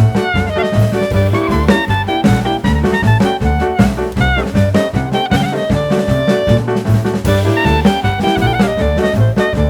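Background music: an upbeat jazz tune with brass, likely saxophone, over a drum kit playing a steady beat.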